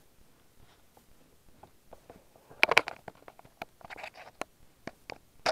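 Handling of a small plastic collectible figure and its metal stand rod: a scatter of light clicks and taps, with a louder cluster of clicks about two and a half seconds in and a brief rustle a little later.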